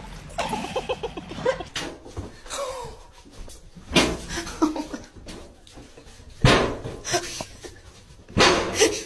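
Small dog barking: a few loud single barks a couple of seconds apart, the last two close together.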